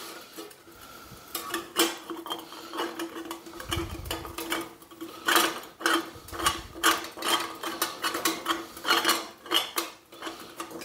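Glass mason jar being twisted into the steel jar ring of a sheet-metal squirrel feeder: irregular clicks, knocks and scrapes of glass against metal, with a steady faint hum underneath.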